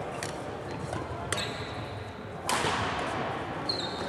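Sharp badminton racket-and-shuttle hits with sneaker squeaks on a sports hall floor, echoing in the large hall. The loudest hit comes about two and a half seconds in, and short high squeaks come just before and near the end.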